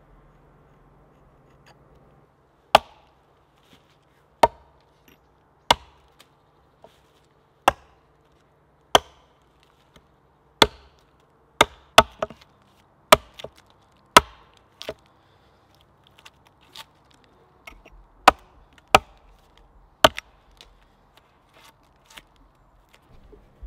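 Axe chopping a notch into a birch log that rests on a wooden chopping stump. After a couple of quiet seconds come about a dozen sharp wooden chops, spaced a second or two apart, with lighter knocks between them and a short pause about two-thirds of the way through.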